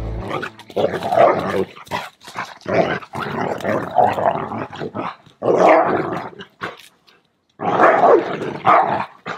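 Two dogs wrestling, growling and barking in loud, irregular bursts with short pauses. The noise sounds scary, as if the dogs are fighting.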